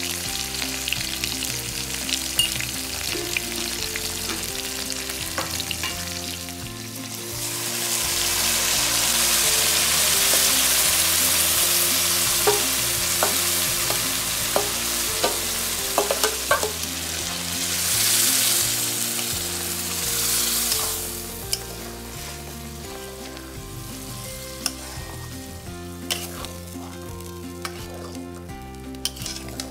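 Food frying in hot oil in a metal kadai, stirred and scraped with a metal spatula. A quarter of the way in, the sizzle grows into a loud hiss as ground masala paste goes into the hot oil, with sharp scrapes of the spatula. About two-thirds through it dies back to a quieter fry.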